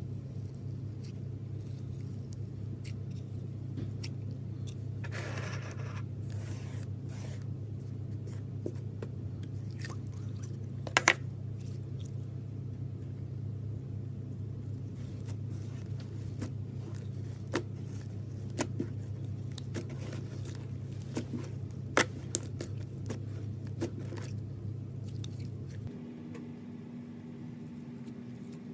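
Glitter slime being handled, with scattered small pops and clicks over a steady low hum; the hum changes to a higher steady tone near the end.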